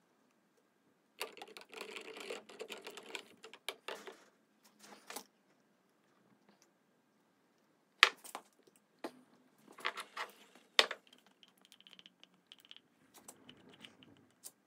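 Clicks, knocks and rustles of handling a glass jar of warm glue: a wooden stirrer clicking against the glass, a crinkly stretch about a second in, and a few sharp clinks around the middle as the jar is lifted out of a bottle-warmer glue pot.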